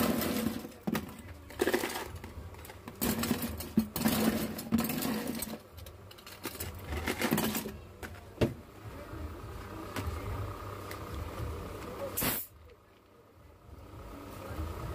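A plastic ice box and its ice being handled: irregular bursts of rattling and scraping through the first half, then a few sharp clicks before it goes quiet.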